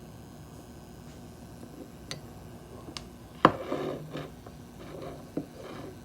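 Faint steady buzz of a Cooler Master MWE 650 V2 Gold power supply, the coil whine that the owner is demonstrating, under a few clicks and a loud knock about three and a half seconds in, followed by a brief rustle.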